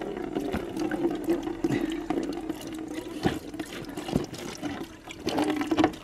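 Milky mix of oil and flood water pouring from a flooded lawn mower engine and splashing into a plastic bucket. A couple of sharp knocks come about three and four seconds in. The milky colour shows that water got into the engine oil.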